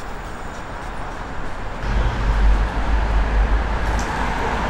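Road traffic noise: a steady hiss of passing traffic with a low rumble that grows louder about two seconds in.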